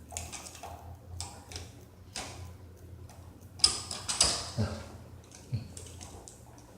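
Light clicks and scrapes of needle-nose pliers working a bare ground wire on an electrical outlet, with a few louder clicks a little past halfway.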